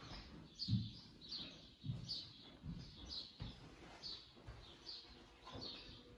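Slow footsteps on a wooden floor, about one step every three-quarters of a second. Each step has a soft low thud and a short high squeak.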